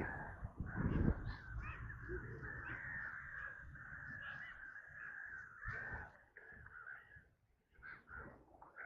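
Several birds giving harsh, crow-like caws in a rapid, overlapping chorus that thins out after about six seconds. A low thump about a second in.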